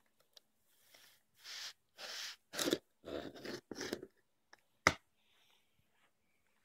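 Packing tape on a cardboard box being slit with a sharp-edged file: a run of short rasping scrapes, then a single sharp knock about five seconds in.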